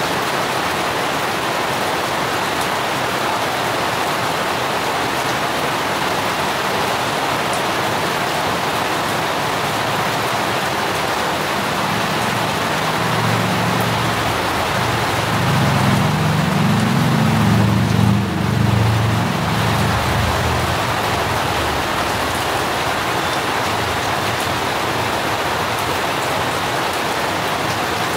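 Steady rain falling. About halfway through, a low rumble swells for several seconds and then fades.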